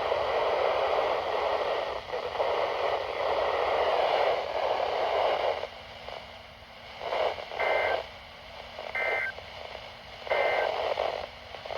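Weather radio receiver hiss for about five seconds, then three short two-tone data bursts about a second and a half apart, each about a third of a second long. These are the EAS/SAME end-of-message bursts that close the alert.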